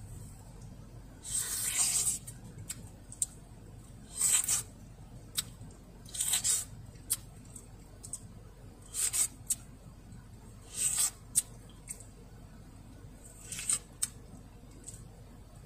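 Someone biting into a slice of ripe green-fleshed melon: about six juicy, slurping bites of crisp melon flesh, roughly two seconds apart, with small sharp clicks in between.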